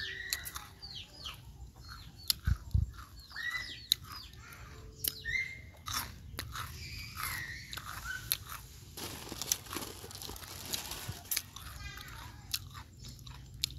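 A ginger-and-white cat chewing and crunching food crumbs, with many short, irregular crunches.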